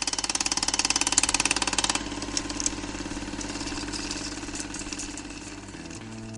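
An engine running steadily with a fast, even chugging, a little softer from about two seconds in. It is used as a transition sound effect.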